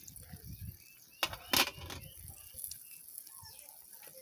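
Metal cookware and utensils clinking and rattling at the frying pan, with two sharp knocks about a second and a half in.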